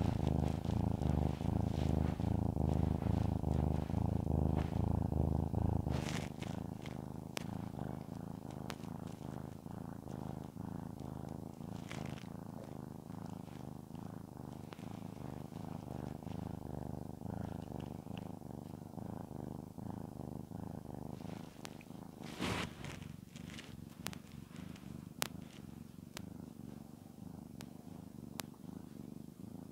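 Domestic cat purring steadily while being stroked, a low pulsing rumble. The purr is loud at first and drops to a softer level about six seconds in, with a few brief rustles along the way.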